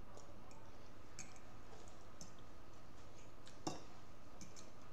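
Quiet eating at a table: scattered small clicks of metal forks against china plates, with faint chewing, and one sharper clink about three and a half seconds in.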